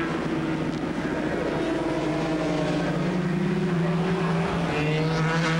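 500cc two-stroke Grand Prix racing motorcycles at speed on track, their engine note rising and falling in pitch as they run through the corners.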